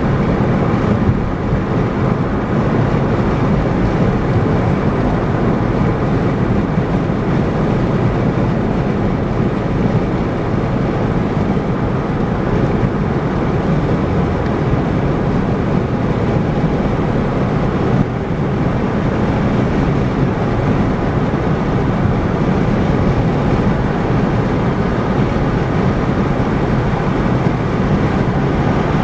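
Steady tyre and wind noise of a car cruising at highway speed, a constant low rumble.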